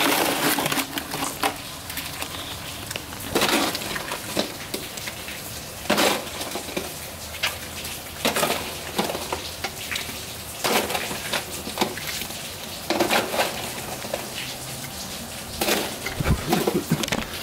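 Boiled crawfish being cracked and peeled by hand: irregular crunches, snaps and small clicks of shell, with a louder crackle every two to three seconds.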